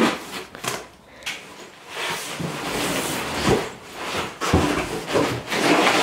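Unpacking a cardboard shipping box: cardboard and foam packing scraping and rustling, and plastic-bagged parts crinkling as they are lifted out, with a few dull knocks.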